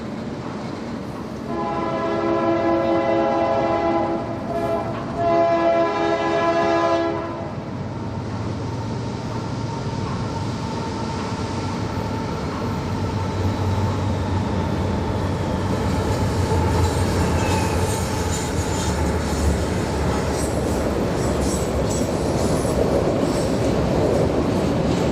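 Diesel switcher locomotive horn sounding two blasts, followed by the ALCo S1's diesel engine rumbling under load as it gets moving, with clattering from the cars and wheels.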